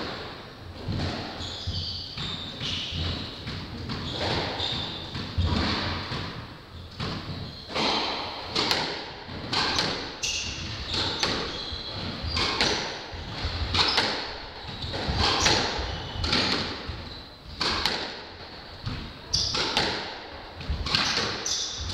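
Squash rally: the ball smacks off racquets and the court walls every second or so at an uneven pace, with short high squeaks from shoes on the wooden floor.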